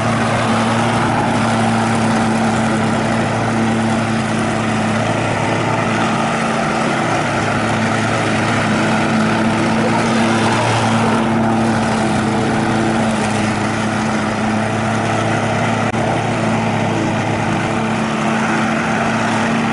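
Walk-behind petrol rotary lawn mower running at a steady, even engine speed while it is pushed over the lawn, cutting grass.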